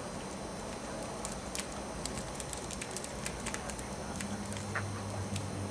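Pet budgerigar chattering softly, with many quick, light high-pitched ticks and clicks as it plays with a felt ball toy. A low steady hum comes in about four seconds in.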